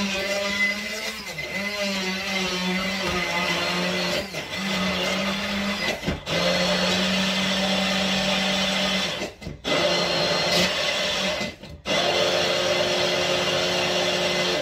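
Electric food processor motor running loud and steady as it minces the filling for meat dumplings. Its pitch wavers for the first couple of seconds, then holds, and it is stopped and restarted a few times.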